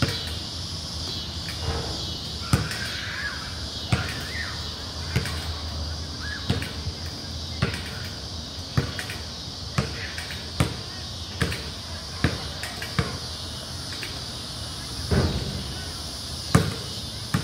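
Basketball bouncing on a concrete court, a sharp bounce roughly once a second at slightly uneven spacing.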